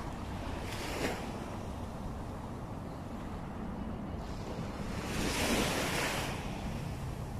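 Waves washing on a beach, with a steady wind rumble on the microphone; one wash swells louder about five seconds in and fades a second later.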